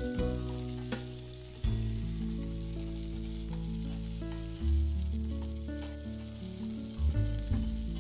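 Chopped onions sizzling as they fry in hot mustard oil in a steel kadhai, stirred with a spatula that clinks against the pan a few times. Background music with held notes plays over it.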